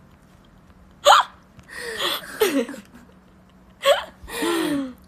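Women laughing in short, high-pitched bursts, with quick rising squeals about a second in and again near the end.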